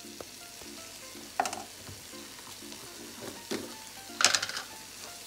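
Wooden spoon stirring raw rice in a little hot oil in a stainless steel pot: a steady low sizzle, broken by a few loud scrapes and rustles of grains against the pot, about a second and a half in, again past three seconds, and louder near the end.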